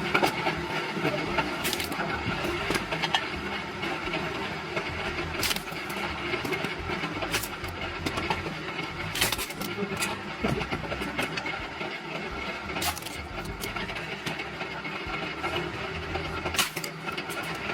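Machinery at work: a steady mechanical clatter and hum with sharp knocks every couple of seconds.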